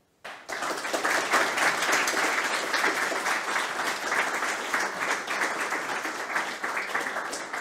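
Audience applauding, a dense steady clapping that starts abruptly a moment in and holds at full strength throughout.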